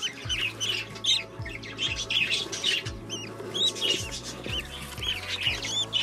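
Budgerigars chirping: many short, high, rising-and-falling chirps in quick succession, with a few low knocks.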